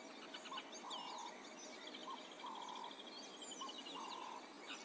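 Bush ambience of birds: scattered high chirps, a rapid trill lasting over a second in the middle, and a lower two-note call, a short note then a longer one, repeating about every second and a half.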